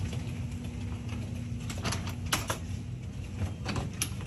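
Hotel room door lock and handle clicking as the door is unlocked and pushed open, a few sharp clicks about two seconds in and again near the end, over a steady low hum.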